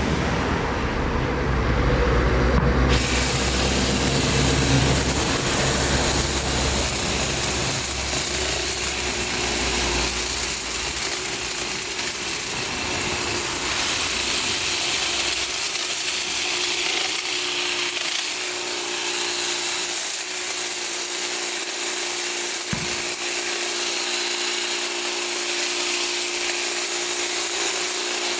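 Makita DUN600L cordless hedge trimmer switched on about three seconds in and running steadily, its blades cutting through a hedge. It is running again now that its worn bearings have been replaced.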